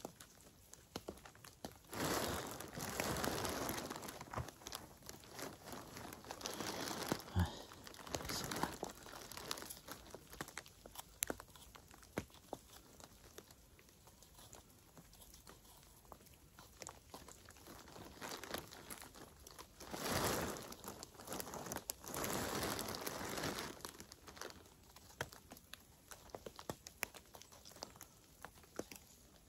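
A plastic rain poncho crinkling in several bursts as the arms move, with small clicks and scrapes of a knife cleaning the stem of a porcini mushroom between them.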